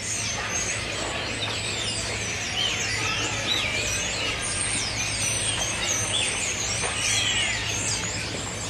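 Several small birds chirping and twittering in a tree, with many quick, wavering rising and falling calls overlapping, over a steady low hum.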